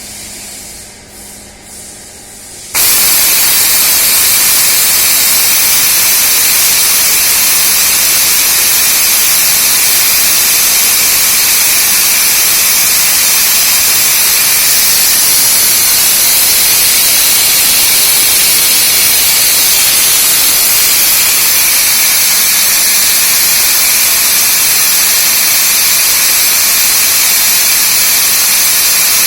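A loud, steady hiss cuts in abruptly about three seconds in and holds unchanged, after a few seconds of fainter noise.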